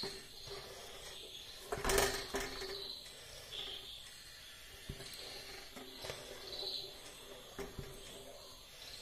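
A wooden-handled spatula stirring thick, milky payasam in a metal pot, scraping and sloshing, with a sharp knock against the pot about two seconds in and a few softer taps later.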